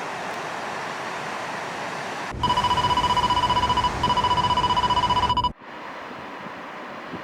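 A steady, high electronic beep held for about three seconds with a brief break in the middle, over a low rumble; it starts and stops abruptly. Before it, a steady rushing noise like surf and wind.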